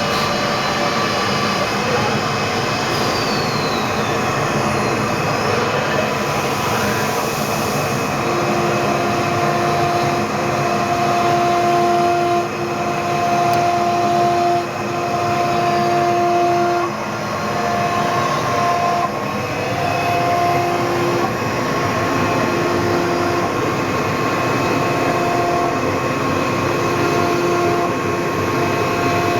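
Linnerman CC-1530 CNC router running, its spindle and cutter machining wood with a steady, noisy drone. From about eight seconds in, a whine comes and goes in stretches of a second or two.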